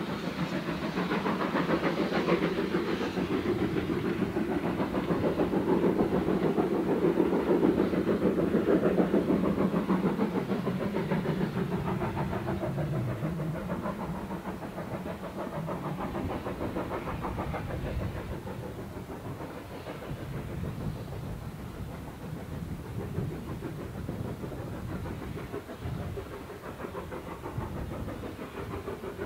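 Steam train hauled by BR Standard Class 2MT 2-6-0 No. 78018 running away around a curve: a dense rumble of locomotive and coach wheels on the rails, peaking a few seconds in and then slowly fading as it recedes.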